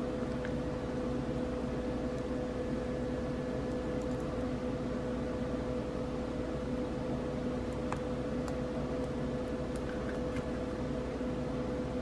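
Steady machine hum with a constant low tone, like an appliance or fan running close by, with a few faint light clicks.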